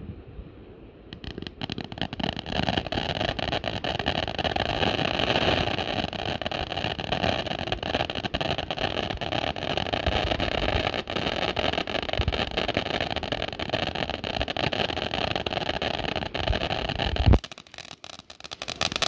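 Ground firework fountains spraying sparks: a steady loud hiss thick with crackling that starts about a second in and cuts off near the end with one loud thump.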